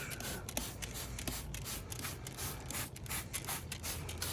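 Irregular light clicks and rubbing as the motorcycle engine is worked over with degreaser, over a faint steady low hum.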